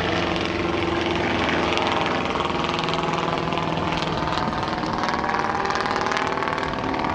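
Piston engine and propeller of a World War I replica biplane in flight, a steady drone whose pitch shifts slightly as it passes.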